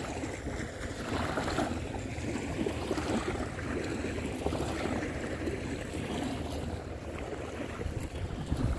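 Small waves lapping and washing up on a sandy lakeshore, with wind rumbling on the microphone.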